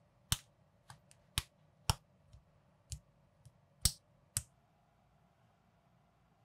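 Unofficial LEGO-compatible minifigure parts clicking as they are pressed and snapped together by hand: about ten sharp plastic clicks of varying loudness over the first four and a half seconds, then they stop.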